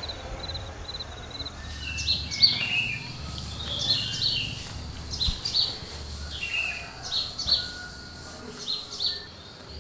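A cricket chirping in a quick, regular rhythm, then from about a second and a half in, small birds chirping in short, sharp, repeated calls, like a night-to-morning ambience.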